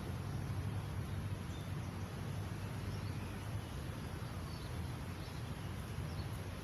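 Outdoor park ambience: a steady low rumble with a few faint bird chirps.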